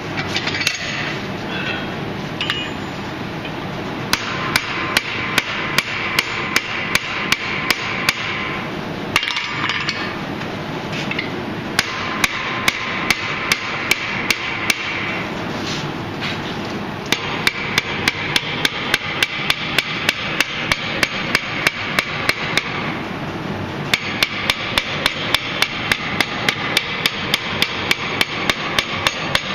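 Blacksmith's hand hammer striking steel on an anvil in runs of steady, evenly spaced blows, about two to three a second, with short pauses between runs, over a steady background noise.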